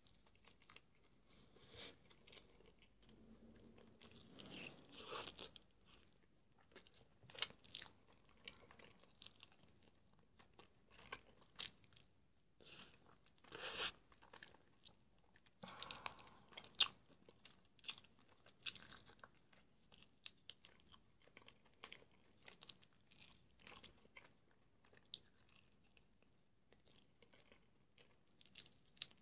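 Quiet close-up mouth sounds of gnawing and chewing meat off a duck leg bone: irregular soft crunches and clicks, in small clusters.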